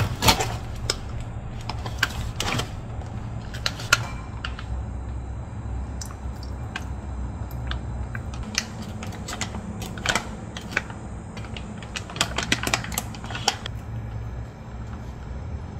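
Kitchen handling sounds from a bagged chicken on a wooden cutting board, a ceramic bowl and a steamer pot with its lid: scattered clicks, knocks and clinks, more of them near the end as the lid goes on. A steady low hum runs beneath.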